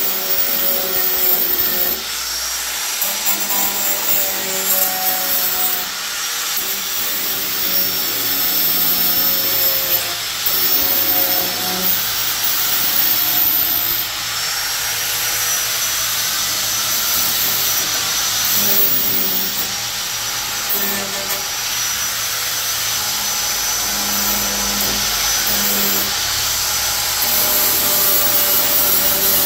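Handheld electric grinder running continuously, its disc grinding down the freshly cut sheet-metal edges of the louver openings in a Jeep Cherokee hood. A steady high motor whine over a harsh grinding hiss, with small dips in level every few seconds.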